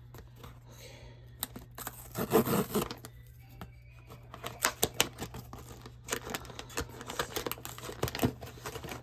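A cardboard blind box and its wrapping being opened by hand: irregular crisp clicks, crackles and crinkles of packaging, a short busy patch about two seconds in and near-constant clicking through the second half, over a faint steady hum.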